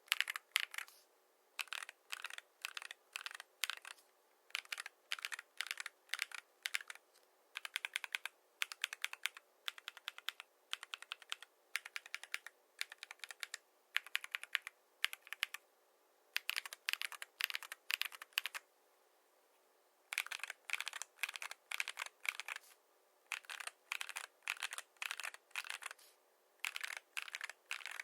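Typing on a mechanical keyboard fitted with AKKO V3 Cream Blue Pro tactile switches and PBT MDA keycaps: quick runs of key clacks with short pauses between them, and one longer pause about two-thirds of the way in.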